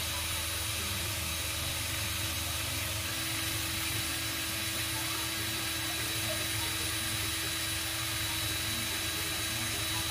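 Cordless drill running steadily at high speed with an Allen key chucked in it, carving out a block of foam. It makes a constant hum with a few fixed tones over a wide hiss.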